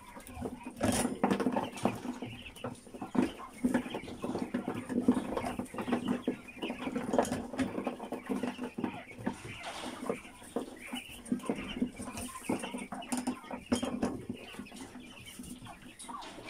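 White quail clucking and calling while they are handled and set into a wire cage, with many short clinks and rattles of the wire cage.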